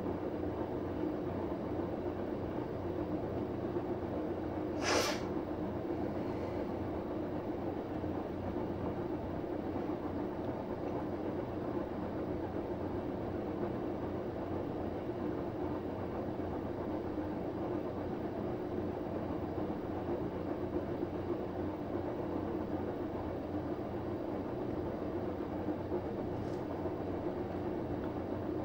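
Samsung WF9904RWE front-loading washing machine on its Eco Drum Clean cycle with an empty drum: the direct-drive motor turning the drum with a steady, quiet hum and running-water noise. A short hissing swish comes about five seconds in.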